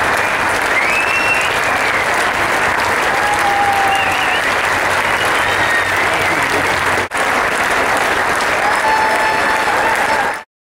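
A large crowd of spectators applauding, with a few whistles or shouts over the clapping. The applause breaks off briefly about seven seconds in and cuts off abruptly just before the end.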